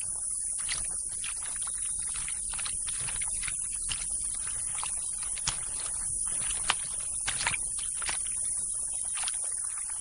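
A steady high insect chorus, with irregular wet scrapes and clicks from an African bullfrog digging through mud.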